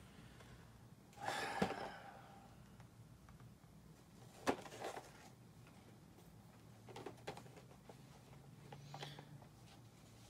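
Faint handling of a boxed action figure's cardboard and clear plastic packaging as it is turned over in the hands: a brief rustle about a second in, then a few scattered clicks and taps.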